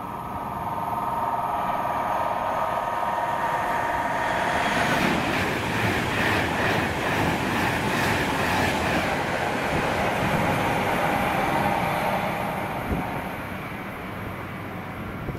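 A train passing: a steady whine at first, then the rush and rattle of wheels on the rails for several seconds, fading away near the end.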